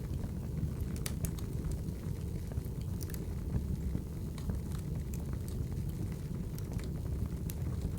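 Wood fire burning: a steady low rumble of flames with frequent sharp crackles and pops from the logs.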